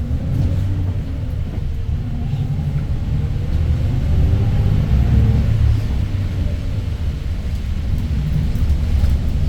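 Daewoo BS090 city bus's GL08P compressed-natural-gas engine running as the bus drives, with a steady low rumble. It grows a little louder about four seconds in.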